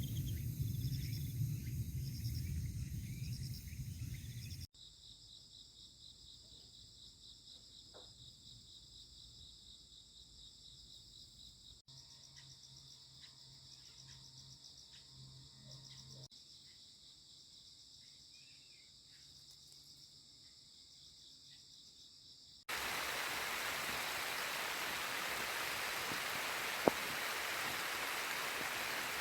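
Crickets chirping faintly in a high, pulsing trill, carried across several short cut clips. About two-thirds of the way in, a steady, louder hiss like rain takes over.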